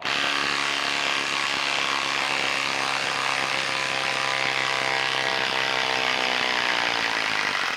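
Bosch Freak 18V cordless impact driver hammering without a break as it drives a long lag screw into a wooden stump, its pitch sagging slightly near the end and stopping at the end.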